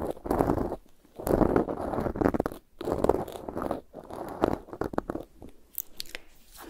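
Cotton swab rubbing and scratching on a Zoom H6's XY microphone capsule, heard very close as a mock ear cleaning. It comes as a series of scratchy strokes, each under a second, with short gaps, fainter near the end.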